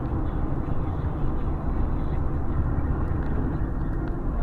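Steady road and engine noise inside a moving car's cabin at highway speed: an even low rumble with no distinct events.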